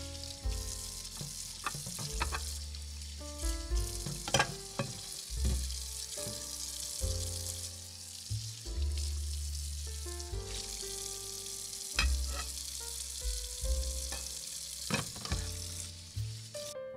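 Miniature stainless-steel pot of chicken and vegetable stew simmering over a tiny burner with a steady high hiss, stirred with a small metal spatula that clinks against the pot several times. The hiss stops just before the end.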